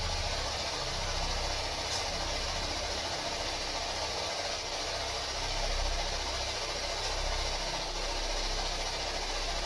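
Radio static from a spirit box sweeping through stations: a steady hiss with a low rumble underneath, and no clear voice coming through.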